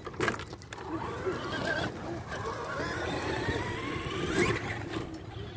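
Electric RC monster truck's motor whining, its pitch rising and falling with the throttle as it drives off across grass, with a sharp knock about four and a half seconds in.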